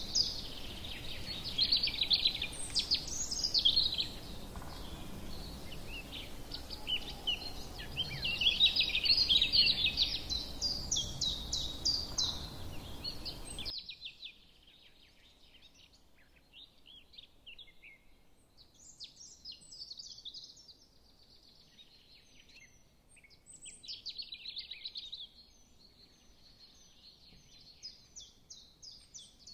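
Small birds chirping and twittering continuously in quick, high calls, loudest in the first half. The steady background hiss cuts out abruptly about fourteen seconds in, leaving fainter chirping.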